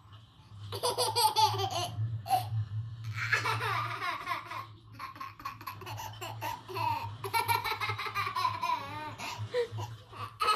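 Baby laughing in several runs of giggles, about three bursts with short pauses between them, over a steady low hum.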